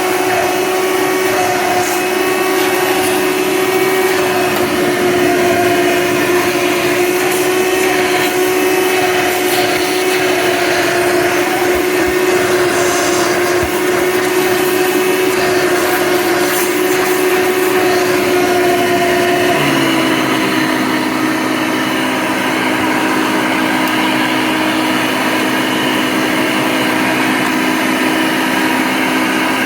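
Hoover Legacy II upright vacuum cleaner running steadily, its motor fitted with a 20-bladed fan giving a steady whine over the rush of air. About two-thirds of the way through, the motor's pitch drops slightly and its tone changes.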